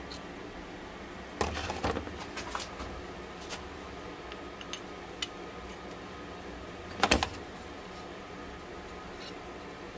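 Steel workshop tools handled on a bench: a dial caliper and a drilled steel 1-2-3 block with a clamped tool holder knocking and clinking metal on metal. A cluster of clinks and clatter comes about a second and a half in, a few light ticks follow, and a second sharp clatter comes later.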